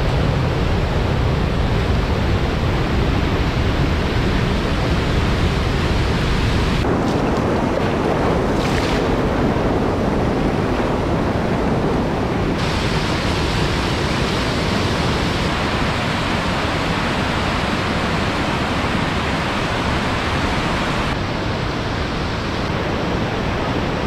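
Swollen, muddy river water rushing over a low weir and through rapids: a loud, steady wash of white water whose character shifts a few times.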